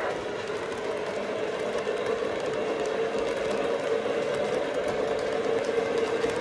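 O-gauge model passenger cars rolling past on three-rail track: a steady rumbling hum of metal wheels on the rails, with faint irregular ticks.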